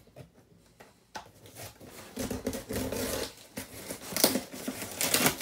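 Scissors cutting the packing tape along the seam of a cardboard box: scratchy scraping of blade on tape and cardboard with sharp snaps, starting about a second in and getting louder near the end.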